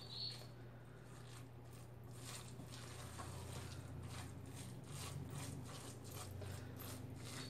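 Faint, soft squishing of a rice-and-fish mixture being kneaded by hand in a stainless steel bowl, about three squishes a second, over a low steady hum.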